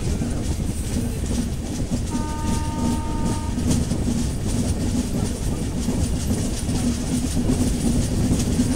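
Train running on its rails with a steady rumble and rhythmic clatter. About two seconds in, a short horn tone sounds for about a second and a half.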